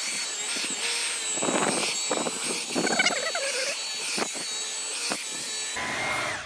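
Dyson V11 Torque Drive cordless vacuum running with its motorized brush head on a car floor mat: a steady high-pitched motor whine over a rushing airflow, with scattered short crackles, cutting off just before the end.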